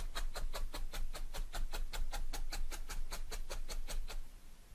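Felting needle jabbed repeatedly through wool roving and pre-felt into a foam mat, a quick even ticking of about six pokes a second that stops shortly before the end.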